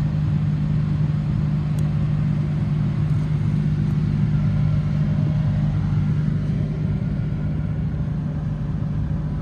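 2005 Hummer H2's 6.0-litre V8 idling: a steady low drone with no change in pitch.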